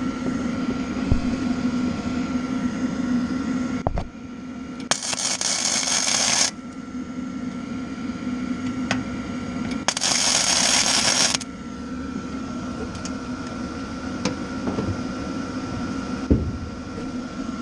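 Welding arc laying two tack welds on the toolbox, each a crackling hiss of about a second and a half, the first about five seconds in and the second about ten seconds in, over a steady hum.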